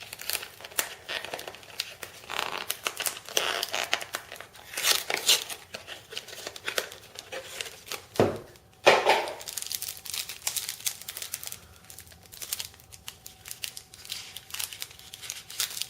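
Trading-card pack wrapper being crinkled and torn open by hand, with irregular crackling and rustling throughout and one sharper, louder rip a little past the middle.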